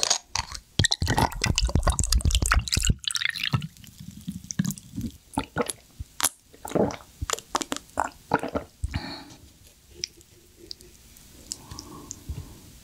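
Cold purple corn tea poured from a bottle into a glass of ice, then drunk in a series of gulps with ice clinking in the glass.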